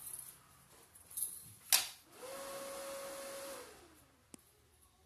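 A sharp click, then a small motor or fan hums steadily at one pitch for about a second and a half before fading out.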